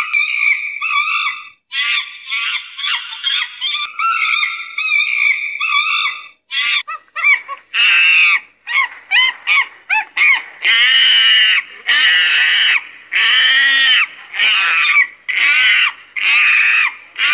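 Primate calls: a rapid run of short, high-pitched squealing chatter, then from about seven seconds in a long series of shrill screams, each rising and falling in pitch.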